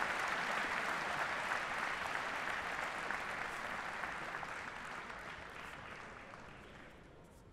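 Arena crowd applauding, the clapping growing steadily fainter until it has nearly died away near the end.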